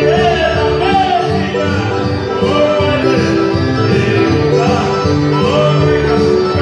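A women's choir singing a song with a man leading on a microphone through PA speakers, over instrumental backing with held chords and a steady beat.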